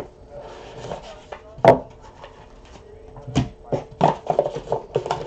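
Hands handling a trading card box and its packaging on a table. A sharp knock comes about a second and a half in and another about three and a half seconds in, then a quick run of knocks and rustles near the end.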